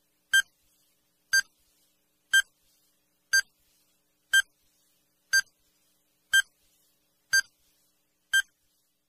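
Countdown timer sound effect: short electronic beeps, one each second, nine in a row.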